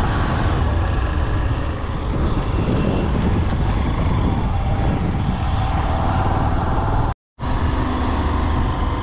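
Motorcycle riding on a road, with steady engine and wind noise strongest in the low end. The sound drops out for a moment about seven seconds in.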